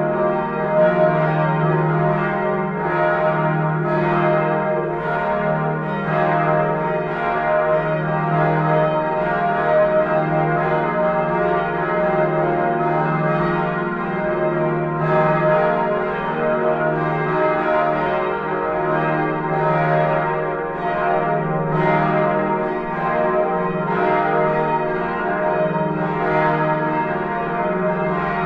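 Church bells of the Neumünster in Würzburg ringing together in a continuous swinging peal. Strokes fall about once a second and overlap, each ringing on into the next.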